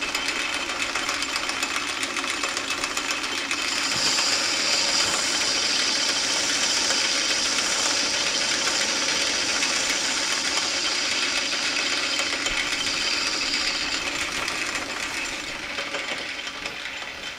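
Belt-driven metal lathe running while a cutting tool turns down a steel workpiece. A high, hissing cutting sound comes in about four seconds in, holds steady, and eases off near the end as the cut finishes.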